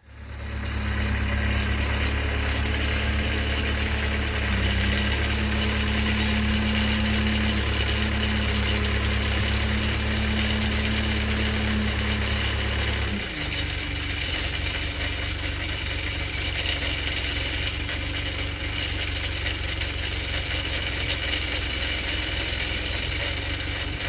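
An engine starts up and runs steadily, its low note changing a little past halfway through.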